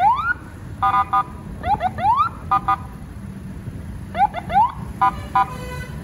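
Electronic vehicle siren playing a repeating sequence: pairs of quick rising whoops alternating with pairs of short three-tone horn blips, about every second and a half, over passing traffic.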